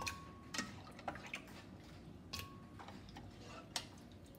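Boiled tomatillos scooped with a slotted spoon from a steel pot of hot water and dropped into a glass blender jar: about five separate soft knocks and clinks, two with a brief ring, amid dripping water.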